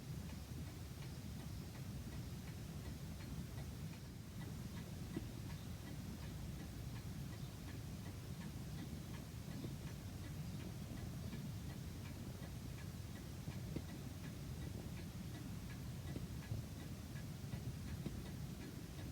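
Longcase (grandfather) clock ticking steadily, with even, regular ticks over a low steady rumble.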